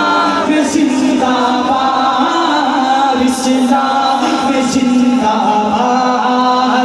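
A man singing a devotional Urdu kalam into a handheld microphone, holding long sustained notes.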